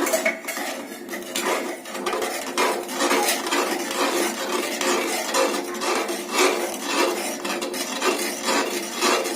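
Spoon stirring and scraping round a kadai of onion-chilli paste and milk, in repeated strokes about every two-thirds of a second.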